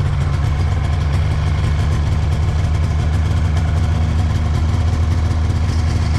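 Polaris XLT snowmobile's two-stroke engine idling steadily.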